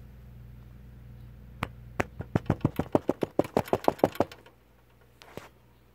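A rapid run of about twenty sharp taps over two and a half seconds, coming faster toward the end, then a single tap about a second later.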